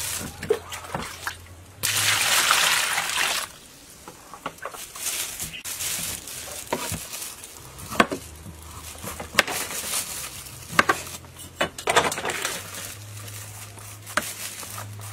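Water sloshing in a bowl as produce is handled in it, loudest for about a second and a half near the start, then a kitchen knife peeling the bumpy skin off a wild jackfruit: a run of sharp clicks and short scrapes as the blade cuts through the rind.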